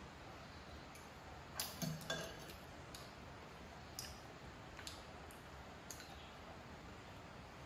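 Light clinks of tableware: three quick clinks close together about two seconds in, then single faint ticks about a second apart.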